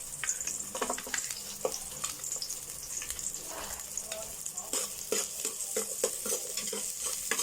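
Chopped onion, ginger and garlic sizzling in hot oil in a pot, being sautéed and stirred, with a utensil scraping and clicking against the pot now and then.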